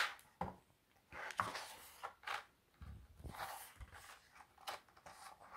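Quiet rustling and a few soft taps as the pages of a hardcover picture book are turned and smoothed flat by hand.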